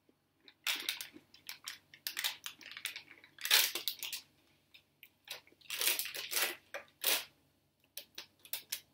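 Plastic snack wrapper crinkling and rustling in irregular bursts as it is handled and pulled open.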